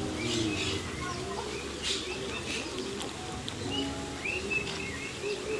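Birds chirping: many short, scattered chirps over a low background murmur.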